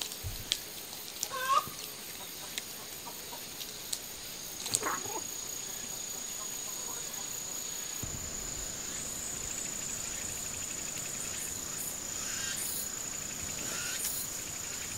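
Outdoor rural ambience: a couple of short clucking calls from a fowl in the first five seconds, among light ticks and rustles. A steady high-pitched insect buzz runs from about five seconds in.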